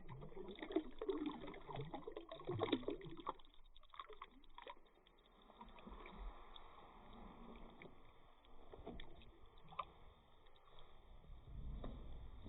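Faint water sounds around a boat: light lapping and small irregular splashes and knocks.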